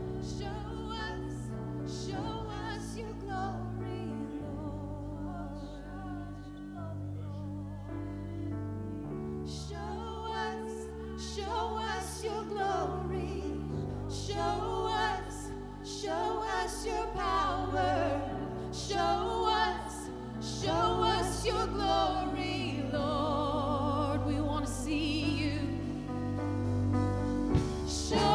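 Church worship music: singing with a wavering vibrato over held low chords, growing fuller and louder through the second half.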